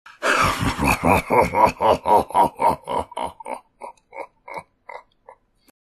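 Deep evil laugh: a long run of rapid "ha" pulses, about four or five a second, that grows quieter and more spaced out toward the end.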